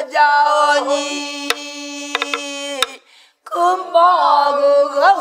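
A group of men and women singing pansori together in long, drawn-out held notes, with a few sharp strokes on a buk barrel drum. The voices break off briefly for breath about three seconds in, then resume.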